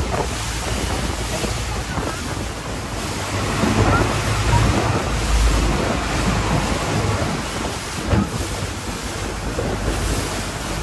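Wind buffeting the microphone and water rushing past the hull of a longtail boat under way, with the boat's engine running as a low rumble underneath.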